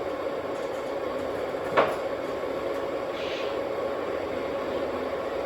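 O gauge model train running on its track with a steady hum and rumble. One sharp click about two seconds in.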